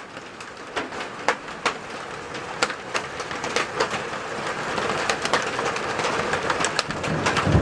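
Hailstones about the size of quarters striking the house, many irregular sharp clacks over the steady hiss of a heavy downpour that grows louder toward the end.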